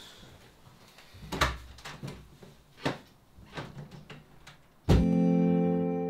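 A few scattered soft knocks and bumps. Then, about five seconds in, a single strummed guitar chord starts suddenly and rings out, slowly fading.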